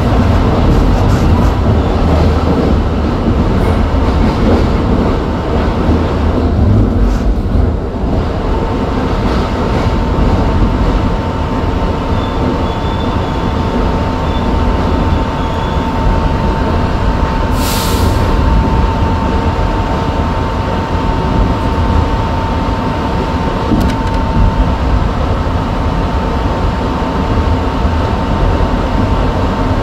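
New York City subway train running through a tight tunnel curve, heard from inside the lead car with steady wheel and track rumble. About a quarter of the way in, a thin, steady wheel squeal sets in and holds. A short hiss comes about two-thirds of the way through.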